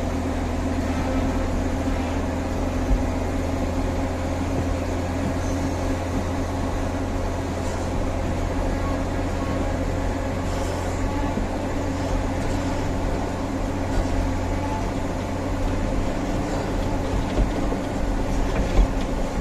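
Heavy diesel earthmoving machinery running steadily: a constant low engine drone with a few faint knocks.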